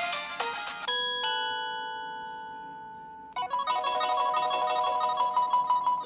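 Preloaded ringtones on an HTC One X previewed one after another through the phone's speaker. A melodic ringtone cuts off about a second in, a bell-like chord rings and fades, and another busy melodic ringtone starts about halfway through.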